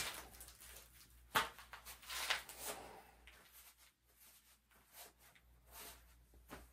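Faint rustling and soft scuffs of leather work gloves being handled and pulled off, a few brief sounds in a quiet small room.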